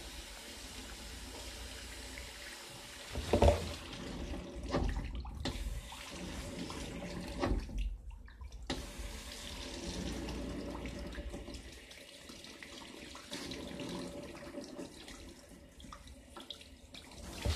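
Water running from a tap into a sink, with a few bumps and a brief break a little past the middle.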